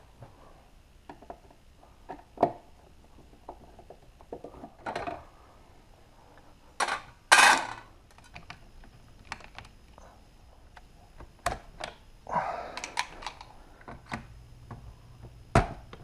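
Irregular clicks, taps and rattles of hand tools and small electrical parts being handled while a transfer switch is rewired, with a louder noisy rasp lasting under a second about seven seconds in and another a little past twelve seconds.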